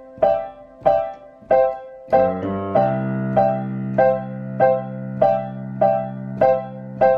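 Digital piano playing a right-hand chord of D, E and G, repeated about every 0.6 s. About two seconds in, the left hand comes in with a quick run of notes and then a low held chord under the repeating chords.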